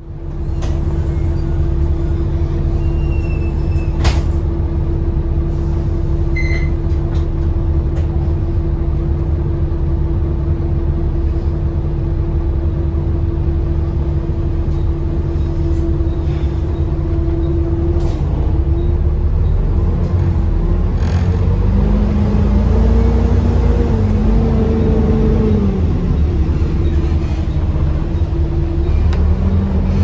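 Bus diesel engine and transmission heard from inside the saloon. A steady drone with a held whine gives way, from a little past halfway, to a pitch that rises and falls as the bus pulls away and changes through its gears, then rises again near the end. The uploader finds the bus sounds quite tired.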